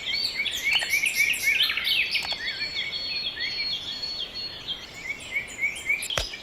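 Birds chirping: many short, rapid, overlapping high chirps, with a couple of sharp clicks near the end.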